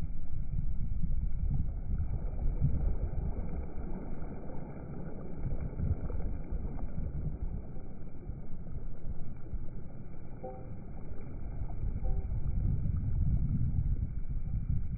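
Wind rumbling on the microphone over rushing water, a low, fluctuating rumble that eases in the middle and builds again near the end.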